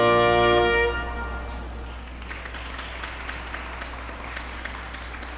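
A held brass-ensemble chord ends about a second in, followed by audience applause.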